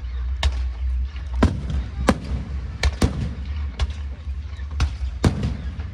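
Aerial fireworks bursting, about ten sharp bangs at irregular intervals, some with a short echoing tail, over a steady low rumble.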